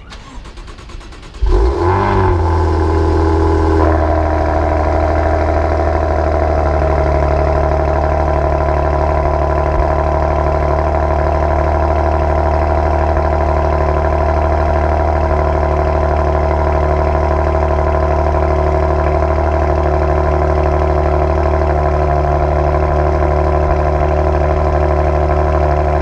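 Maserati Quattroporte S's 3.0-litre twin-turbo V6 cold-started through its sport exhaust: a brief crank, then the engine catches about a second and a half in with a loud flare of revs. Within a few seconds it settles into a steady cold idle.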